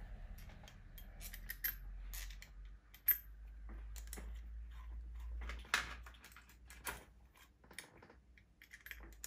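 Irregular light metallic clicks and taps of small steel cap screws being set into their holes around a steel housing and turned in by hand with a hex key, with a few sharper clinks.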